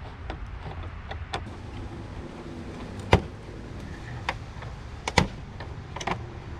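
Plastic side panel of a motorcycle being worked loose from its clips: scattered clicks and knocks, with two sharp snaps about three and five seconds in.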